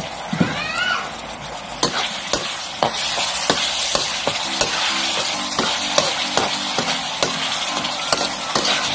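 Pork sizzling in hot oil in a metal wok while a metal ladle stirs it, scraping and clinking against the pan many times at an uneven pace.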